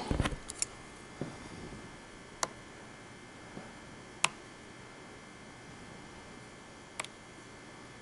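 A pen tip tapping the touchscreen of a wall thermostat as its buttons are pressed: a handful of short, sharp clicks a second or two apart, over quiet room tone.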